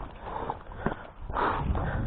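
Footsteps and rustling of someone moving on foot, with a single sharp click a little under a second in and louder rumbling noise in the second half.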